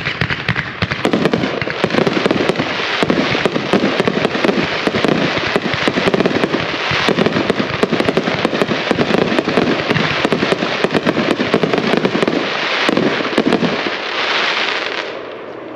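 A 42-shot, 1,000-gram Z-pattern fireworks cake firing: a rapid, continuous string of shots and bursts that fades out near the end.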